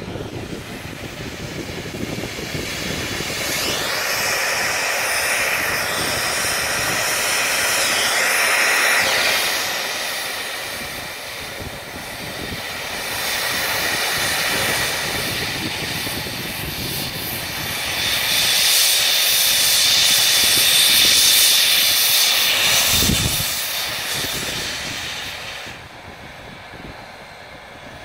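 Steam locomotive venting steam from its cylinder cocks: a loud hiss that swells and fades in three long blasts of several seconds each, then drops off near the end.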